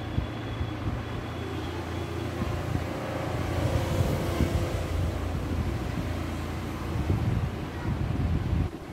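Steady low rumble with a faint hiss over it, which drops away shortly before the end.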